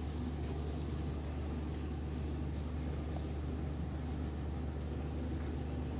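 Steady low hum of an engine running at a constant speed.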